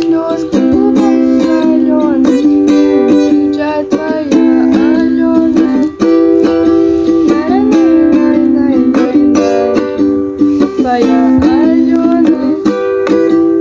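Ukulele strummed in steady chords, with a voice singing a song along with it.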